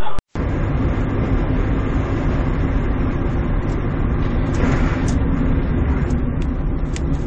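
Steady engine and road noise of a car on the move, starting just after a brief break in the sound.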